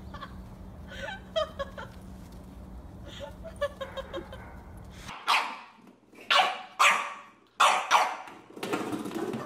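A white bulldog barking repeatedly in short, sharp barks, about six of them, starting about five seconds in. Before that there is only a faint steady hum with a few faint chirps.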